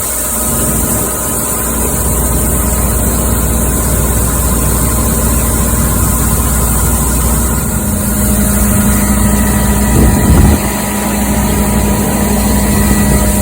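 Heavy farm machinery engine running steadily under load while shelled corn is being loaded, with a steady hum that grows stronger about eight seconds in. A brief louder burst comes about ten seconds in.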